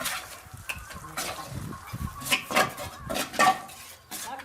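Irregular clinks, knocks and scrapes of metal hand tools working in soil and against metal, the loudest about two and a half and three and a half seconds in.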